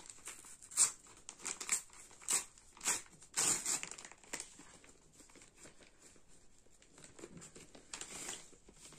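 Brown kraft-paper courier envelope being torn open and crumpled by hand: a quick run of sharp rips and crinkles in the first four seconds, softer rustling after, and one more rip near the end.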